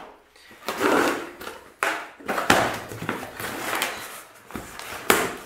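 Scissors slitting the packing tape on a cardboard box, followed by the box flaps being opened and the paper wrapping inside being handled: a run of scraping, tearing and rustling noises with a few sharp clicks.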